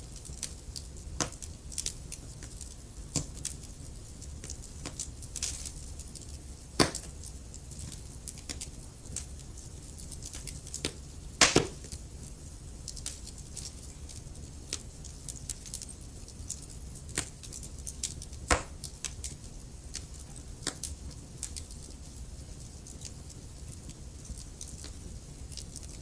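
Wood fire crackling in a fireplace: burning logs give off irregular sharp pops and snaps over a low steady rumble, with louder pops about 7, 11 and 18 seconds in.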